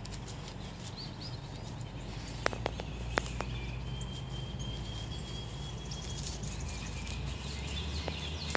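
Outdoor ambience: birds chirping over a steady low rumble, with a few sharp clicks about two and a half to three and a half seconds in.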